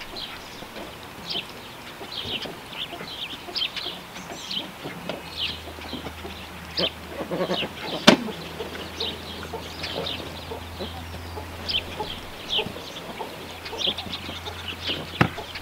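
Birds chirping in a steady run of short, high calls, several a second. A faint low hum comes in about five seconds in, and there is a sharp click a little past halfway.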